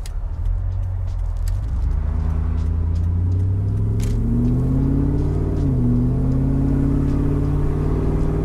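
Supercharged 5.4-litre V8 of a 2003 Ford Lightning pickup heard from inside the cab with the windows down, driven with overdrive off. The engine note rises steadily as the truck gathers speed, dips once in pitch about two-thirds of the way in at a gear change, then holds steady.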